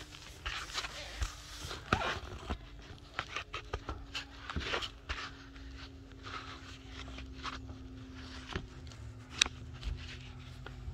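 Scattered clicks, knocks and rustling as hands work on the mini bike and brush the phone close to the microphone, over a faint steady hum.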